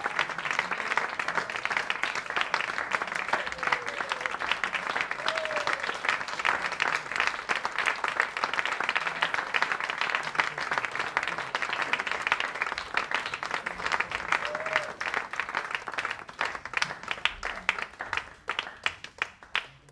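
Audience applauding a curtain call, dense steady clapping that thins to scattered separate claps over the last few seconds.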